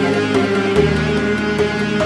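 Background music: sustained instrumental notes stepping up and down in pitch over a light, regular beat.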